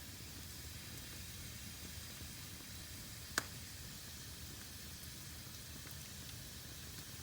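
Fire burning in a fireplace: a steady low hiss and rumble, with one sharp crackle about three and a half seconds in.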